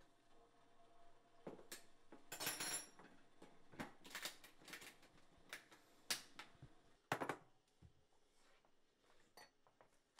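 Kitchenware being handled at a counter: scattered light clinks and knocks of dishes and utensils, with a brief ringing metallic clink about two and a half seconds in.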